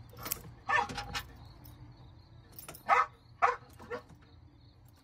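A Belgian Malinois barking in a handful of short, sharp, separate barks, the loudest about three seconds in; the dog has just woken from a sedative and is agitated.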